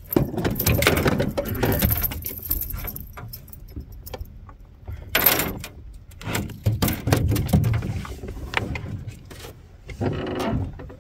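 Irregular clicks and knocks of a just-caught fish being handled and unhooked in a small boat, with a short rush of noise near the end.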